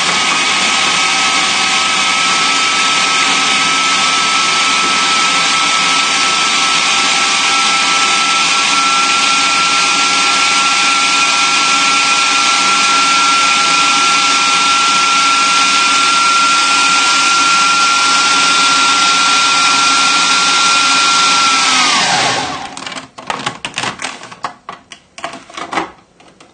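Food processor motor running steadily with a constant whine, chopping ham and cheese into a dry crumb. About 22 seconds in it is switched off and winds down with falling pitch, followed by a few clicks and knocks as the bowl and lid are handled.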